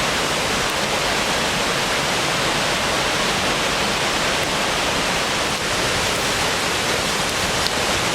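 Steady rushing of Latourell Falls, a large waterfall pouring down, close to the microphone.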